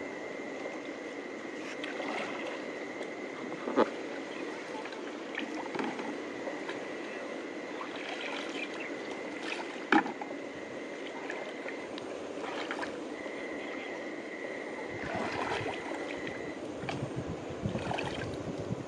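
Shallow creek water sloshing and splashing around a person's legs as she wades in, with two sharp knocks about four and ten seconds in. A thin, steady high-pitched whine runs behind it, dropping out briefly in the middle.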